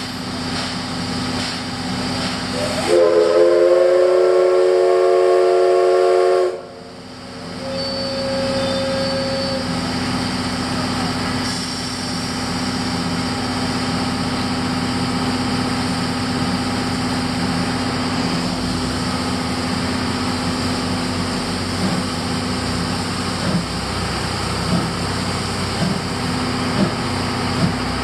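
Steam locomotive C11-325's whistle blowing one long blast of about three and a half seconds, starting with a slight rise in pitch and cutting off sharply. Under it runs the steady noise of the train and of a car driving alongside.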